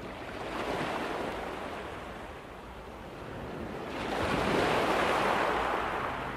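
Rushing of sea water and wind aboard a sailboat, swelling about a second in and again more strongly from about four seconds in.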